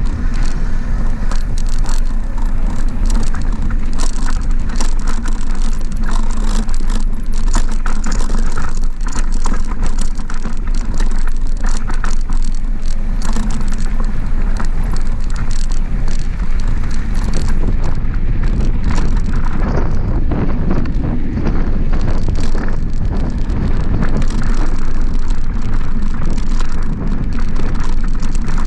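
Mountain bike rolling downhill on a rough dirt fire road: a steady rush of wind buffeting the camera microphone over tyre noise on gravel, with frequent rattles and clicks from the bike.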